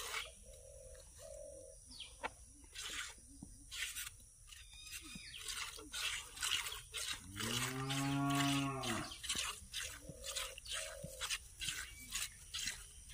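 Hand milking of a cow: milk squirts hiss into a plastic bucket in a steady rhythm of about two a second. About seven seconds in, a cow moos once, a call of about two seconds that rises and then falls in pitch, the loudest sound here.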